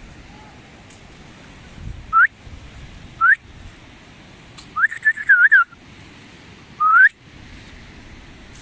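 A person whistling in short rising whistles: two single whistles, then a warbling run of several quick notes, then one longer upward whistle, with gaps of about a second between them.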